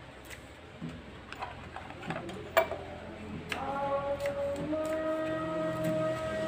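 Scattered clicks and knocks of kitchen handling at a wooden cutting board, the sharpest about two and a half seconds in. From about halfway, background music with a long held note.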